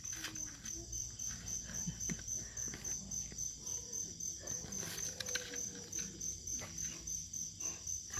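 Crickets chirping in an even, steady pulse, with faint scraping and clicking as a dog gnaws at a coconut's fibrous husk.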